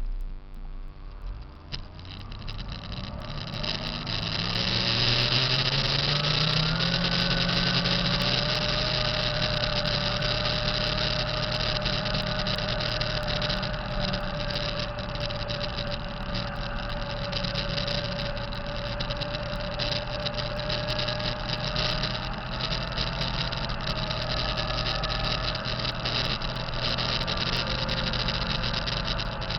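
Diesel engine of a 2005 Kenworth T660 truck running: its speed rises a few seconds in and then holds steady, with a steady whine over it. This is the turbo noise the owner calls bad.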